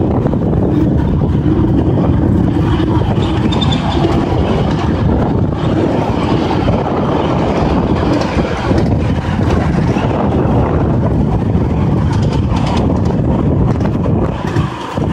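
5-inch gauge miniature railway train running along the track, a loud, steady rumbling noise of the cars rolling on the rails. It dips briefly near the end.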